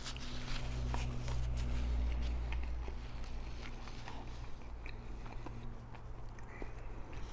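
Close-up chewing and biting of a chilaquiles torta, with scattered small mouth clicks and smacks. A steady low hum runs underneath, swelling for a second or two near the start.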